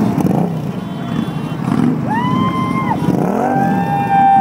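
A motorcycle engine rumbles past. About two seconds in comes a long high hoot, then a louder, longer one with several pitches overlapping, each sliding up at its start and down at its end.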